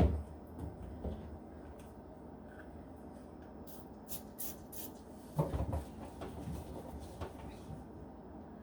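Wiping down the inside of a fridge with a cloth. There is a knock at the start, rubbing throughout, four short hisses about four seconds in, and a few low knocks a little later.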